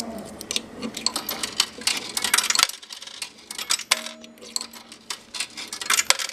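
Coins clinking and dropping into a Western Electric 3A coin payphone, many quick metallic clicks and rattles in two runs with a short lull in the middle.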